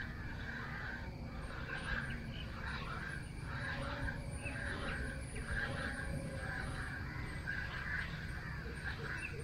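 Birds calling over and over, a little under two calls a second, with a faint steady high insect whine above them and a low rumble underneath.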